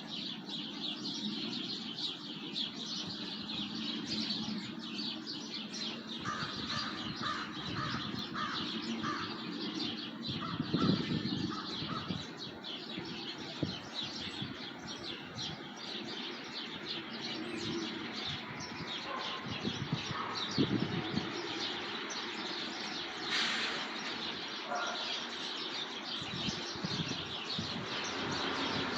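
Many small birds chirping and singing together in a dense chorus, with a run of repeated notes from one bird and a few louder, lower calls standing out.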